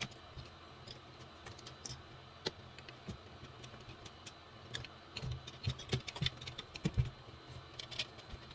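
Scattered small clicks, taps and light knocks of hands handling an electronic wind instrument and its parts on a workbench, busiest in the second half, with a few duller thumps.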